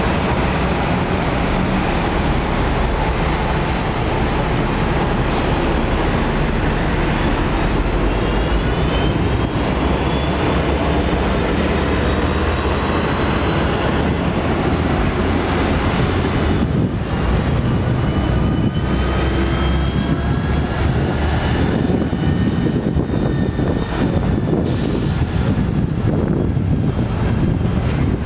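Hong Kong double-decker electric tram running, heard from its upper deck: a steady rumble of steel wheels on the rails, with a rising whine coming in twice.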